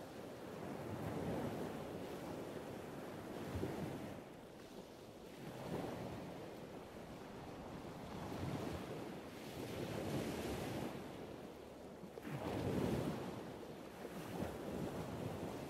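Ocean waves washing in and out as a background ambience, a rushing noise that swells and fades every two seconds or so.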